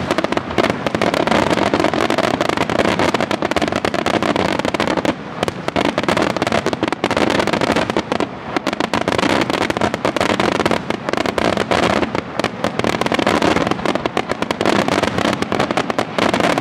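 Aerial fireworks shells bursting in a rapid, continuous barrage of bangs with hardly a pause, the reports overlapping one another.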